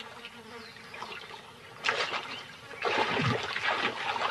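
Water splashing and sloshing as a young hippo moves and plays in a pool, in a short splash about halfway through and a longer churning spell near the end, over a faint steady buzz.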